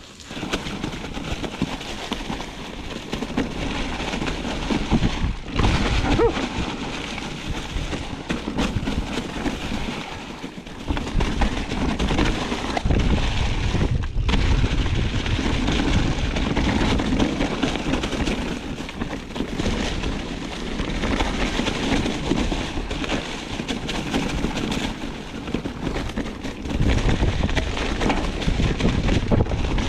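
Wind buffeting the microphone while riding a rough trail: a loud, rushing rumble that surges and dips, with two brief lulls, one about five seconds in and one about fourteen seconds in.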